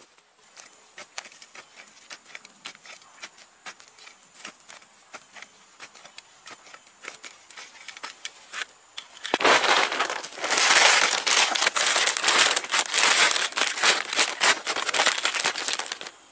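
A small hand trowel scraping and digging into dry forest soil in irregular scratchy strokes. About nine seconds in, a plastic bag being handled starts to crinkle, much louder and continuous.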